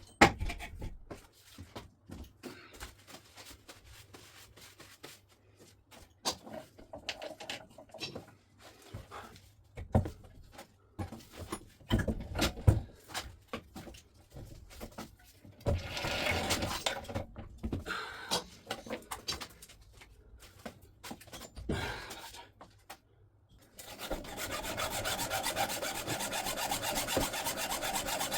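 Scattered clanks and knocks of tools on metal parts, then, near the end, a steady rasping of metal being cut or filed by hand.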